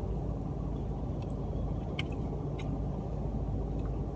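Car cabin noise while driving: a steady low rumble of engine and road, with a few faint ticks.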